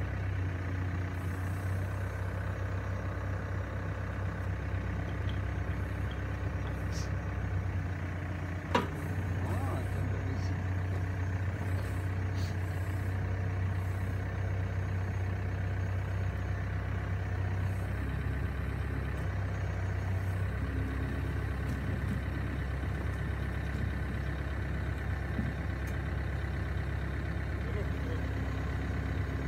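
Komatsu WB93R backhoe loader's diesel engine running with a steady low hum as it holds and lifts a heavy plastic tank on its hydraulic arm. A single sharp knock comes about nine seconds in.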